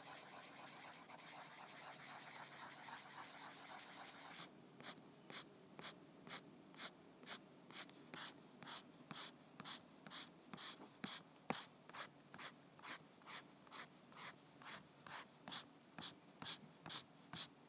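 Pencil scratching on paper: fast continuous scribbling for about four seconds, then it changes suddenly to slow, evenly spaced single strokes at about two a second.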